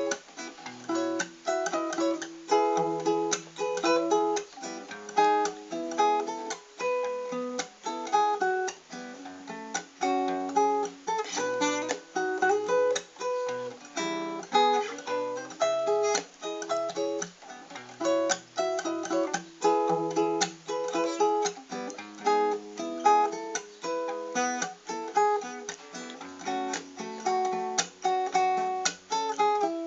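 Acoustic guitar played alone, plucked notes and strummed chords in a steady rhythm.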